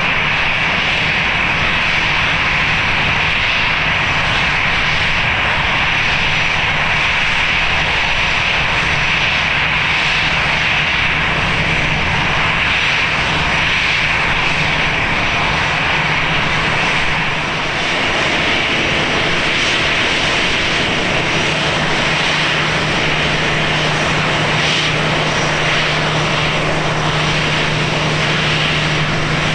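Airliner engines running steadily: an even, loud engine noise with a constant low hum and a higher whine, dipping slightly just past halfway.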